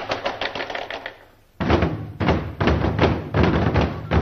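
Ensemble drumming on large red barrel drums: rapid strokes that die away about a second in, a brief pause, then heavy beating resumes at about four strokes a second.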